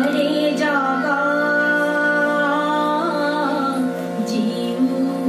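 A woman singing a slow song with long held notes, accompanied by a harmonium whose reeds sound steady sustained notes beneath her voice.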